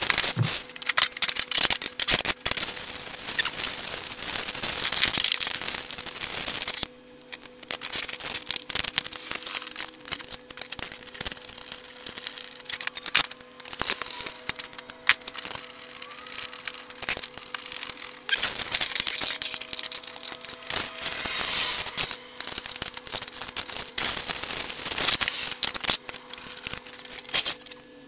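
Clear plastic wrapping crinkling and tearing as it is pulled off the bandsaw stand's painted metal legs, in bouts: a long one over the first several seconds and more past the middle. In the quieter stretch between, scattered clicks and light knocks of metal parts being set down.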